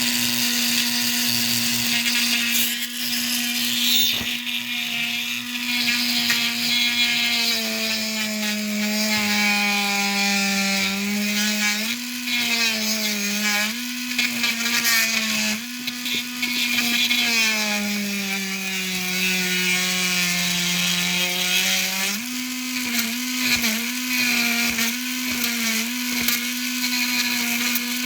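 Small high-speed electric tool with a tiny drill bit running steadily, cutting into the retaining pin of an airsoft muzzle brake. Its motor pitch sags for several seconds at a time as the bit is pressed in and loads it, then climbs back, wavering quickly near the end.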